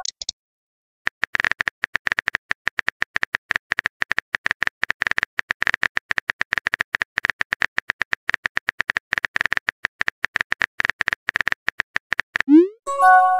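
Typing sound effect: a rapid, uneven patter of keyboard clicks lasting about eleven seconds. Near the end come a rising pop and a short chime, the sound of a new chat message appearing.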